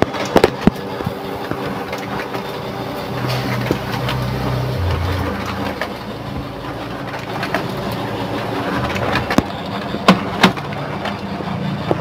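Pantum M7102DW laser printer running a print job, a steady mechanical whir from its drive gears, which have just been oiled to cure a gear noise. A few sharp clicks come near the start and again near the end.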